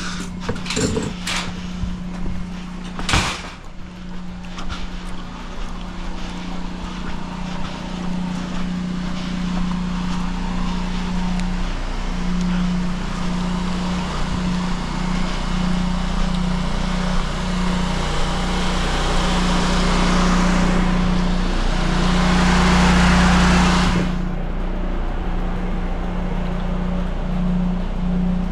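Water rushing through the sewer drain as both toilets are flushed, swelling over several seconds and then cutting off abruptly, over a steady machine hum. A few sharp knocks come in the first few seconds.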